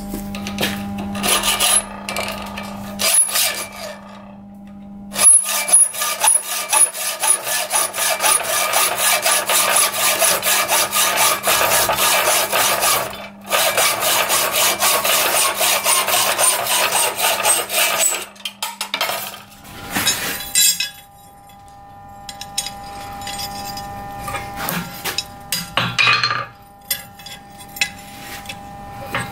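Hand hacksaw cutting a steel rod held in a bench vice: a steady run of rasping back-and-forth strokes with a brief pause partway, stopping about two-thirds of the way in.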